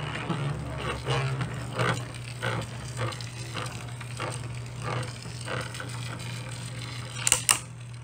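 Two Beyblade Burst spinning tops whirring in a plastic stadium, a steady low hum with irregular clacks as they knock against each other and the stadium, two sharper clacks near the end.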